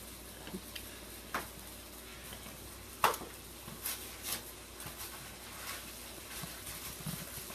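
A hen pecking at food held in a baby's hand, giving scattered light clicks and taps. The sharpest tap comes about three seconds in, over a steady low hum.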